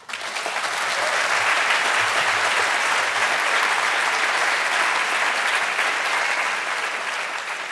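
Audience applauding. The clapping swells within the first second, holds steady, and eases off slightly near the end.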